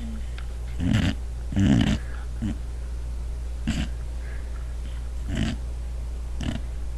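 Boxer dog snoring in its sleep: irregular snorts, the two loudest about one and two seconds in, then shorter ones every second or so, over a steady low hum.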